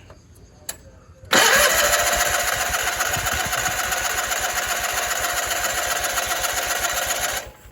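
Electric starter cranking the freshly rebuilt Onan P218G twin-cylinder engine of a 1988 John Deere 318 with its spark plugs disconnected, so it turns over without firing, priming fuel and building oil pressure. The cranking starts about a second in with a rising whine, goes on with an even rapid pulse for about six seconds, and stops abruptly near the end.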